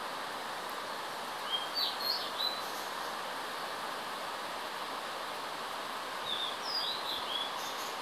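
Steady rushing of a distant waterfall, with a songbird singing two short phrases of quick whistled notes, about a second and a half in and again after six seconds.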